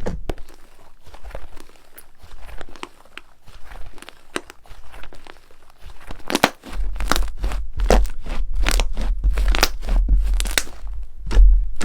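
Slime being squeezed and worked by hand, making irregular crunching and crackling pops. It grows louder from about halfway through, with dull thuds of the slime being pressed down.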